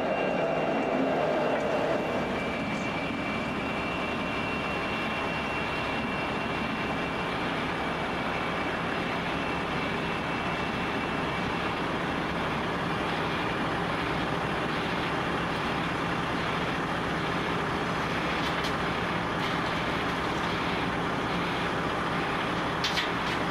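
Diesel locomotive engines running steadily, a deep drone with a thin whine over it for the first several seconds. A few faint clicks near the end.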